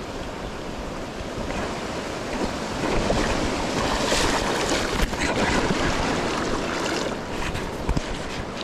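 A fast river in high snowmelt flow rushing steadily. The noise swells louder from about three seconds in to about seven seconds in.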